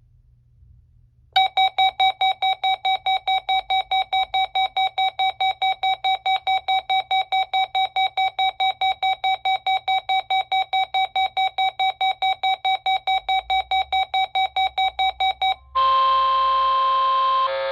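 A RadioShack 12-254 weather radio receiving the KJY85 NOAA Weather Radio Required Weekly Test. Its alert beeps rapidly, about four beeps a second, for some fourteen seconds. The broadcast then comes through: a steady warning-alarm tone over static that cuts off after about two seconds.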